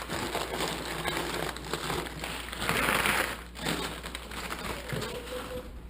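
Crumpled newspaper packing rustling and crackling as it is pulled out of a parts box, loudest about three seconds in.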